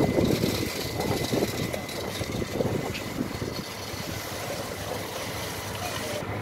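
A concrete pump's engine running steadily during a concrete pour, with a constant mechanical hum.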